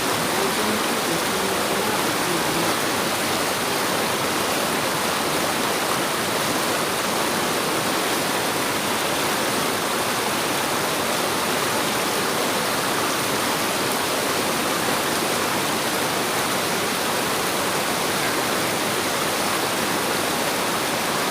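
River water rushing steadily: a loud, even hiss of flowing water.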